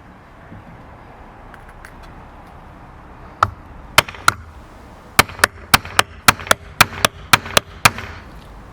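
Hammer striking a heavy-duty snap-fastener closing tool to set a 316 stainless steel cap into its socket: three spaced blows, then a quick run of about a dozen blows at roughly four a second.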